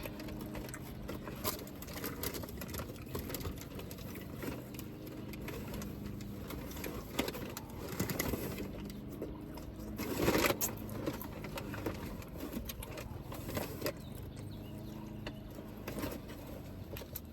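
Close-up eating sounds: a Philly cheesesteak sub being chewed, with scattered wet mouth clicks and a louder noise about ten seconds in. A faint steady low hum runs underneath.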